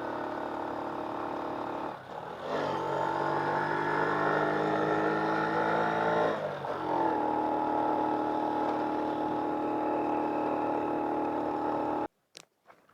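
Honda Wave 100 cc single-cylinder four-stroke motorcycle engine running under way. Its note dips and climbs again about two seconds in and again past six seconds, then the sound cuts off abruptly near the end.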